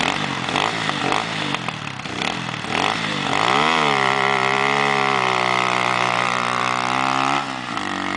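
Sport quad bike's engine revving unevenly, then from about three seconds in climbing to a high pitch held steady for about four seconds before dropping to a lower pitch near the end.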